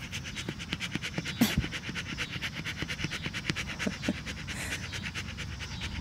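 Large dog panting fast and evenly, with its tongue hanging out, with one brief knock about a second and a half in.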